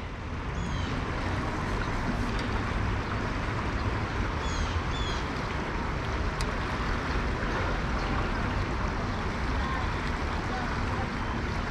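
Shallow river current rushing steadily over a rippled, rocky stretch, with a few brief high chirps about half a second and five seconds in.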